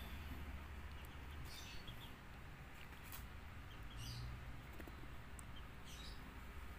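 Faint, short, high-pitched chirps from a small animal, repeating about once every second or so over a steady low hum.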